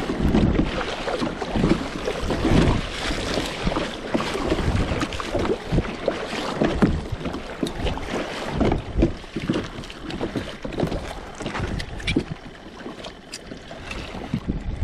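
Wind buffeting the microphone in uneven gusts, over water lapping and splashing against a kayak's hull.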